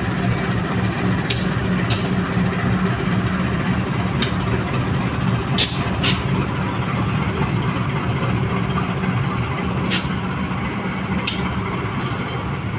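Diesel locomotive engine running steadily with a low hum, with about seven short, sharp sounds over it spread through the stretch.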